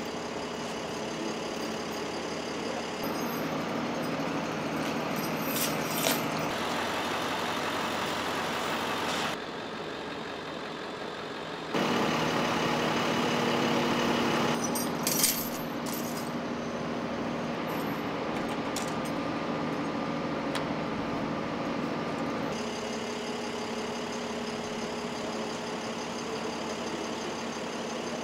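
Idling truck engines running steadily with street background noise, in several short takes that change abruptly in level. A couple of brief clanks are heard in the middle.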